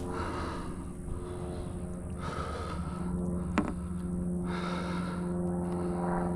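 A man breathing hard in long, noisy breaths, catching his breath after a coughing fit. A steady low motor-like hum runs underneath, and there is a single sharp click about halfway through.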